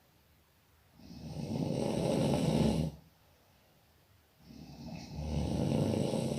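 A person snoring: two long snores, the first starting about a second in and the second about four and a half seconds in, with quiet pauses between breaths.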